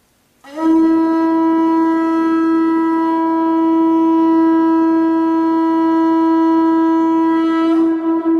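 A single long held note on a horn-like wind instrument, starting about half a second in, holding a steady pitch and wavering slightly near the end.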